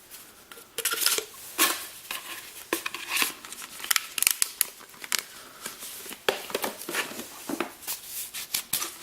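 Irregular handling noise, rustles with clicks and light knocks, as the demolition hammer's steel chisel and pointed bits are picked up and handled.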